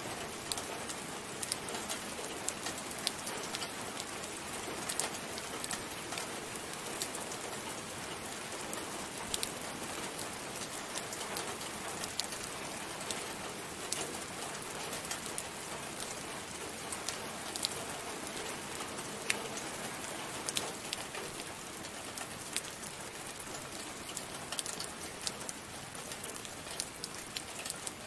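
Steady rain falling: a constant even hiss with many single drops ticking sharply through it, and no thunder.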